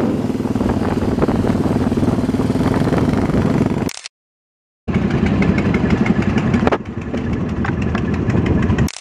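Motorcycle engines running with a steady, even beat, in two short clips; the sound cuts out completely for about a second near the middle.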